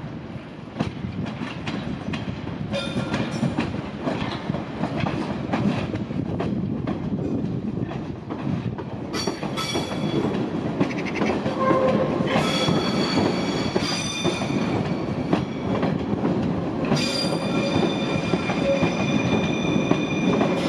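Kyiv Metro train rolling through depot-yard points and curves: steel wheels clicking over rail joints and switches, with a high wheel squeal that comes in several spells in the second half.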